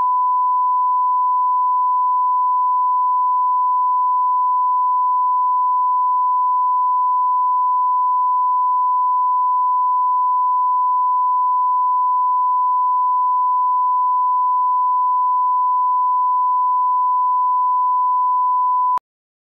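Broadcast line-up test tone: one steady, unbroken pitch played with a countdown clock before a programme part starts. It cuts off abruptly about nineteen seconds in.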